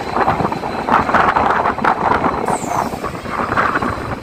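Passenger express train running on the rails, heard from on board, with a steady rumble, wheel clatter and wind on the microphone.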